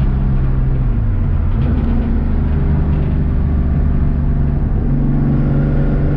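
Car engine running under way, its note dropping about a second in and climbing again near the end, as with a gear change.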